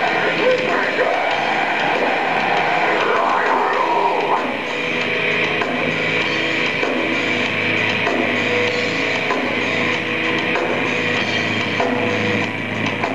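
Live rock band playing loud, heavy music: electric bass, guitars and drum kit.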